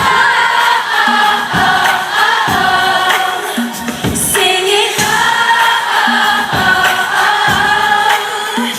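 A live pop song played over a PA system: a sung lead vocal, with backing voices, over a band with a steady drum beat.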